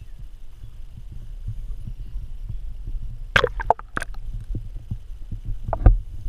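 Muffled low thumping and rumble of a GoPro in its waterproof housing being handled at a pond. About three seconds in the camera goes under the surface with a burst of splashing and bubbling, and there is one more sharp knock with a gurgle near the end, the loudest moment.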